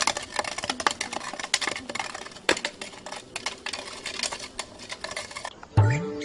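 Dense, irregular crackling and clicking. Near the end it gives way to music, with a low note sliding upward.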